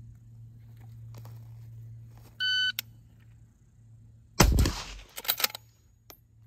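A shot timer gives one short, high electronic start beep. About two seconds later a Ruger Gunsite Scout bolt-action rifle fires a single shot, followed by a few sharp clicks.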